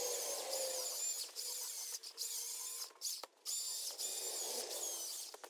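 Milwaukee battery-powered electric chainsaw running with a high whine and cutting, cutting out briefly a few times as the trigger is let off and pulled again.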